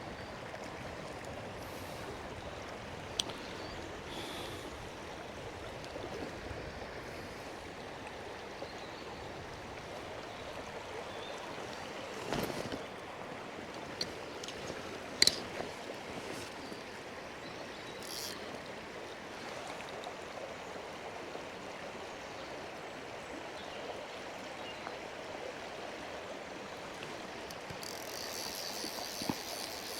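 River water flowing and rushing over rocks, a steady wash, with a few sharp clicks and knocks scattered through it, the loudest about fifteen seconds in.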